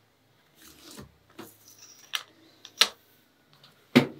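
Clear plastic ruler being moved over drawing paper: a short rustle of paper about half a second in, then three sharp clacks as the ruler is set down and tapped into place, the last and loudest near the end.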